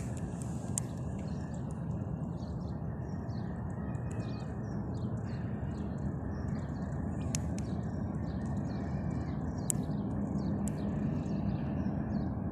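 Small birds chirping, many short high calls one after another, over a steady low rumble, with a few sharp clicks scattered through.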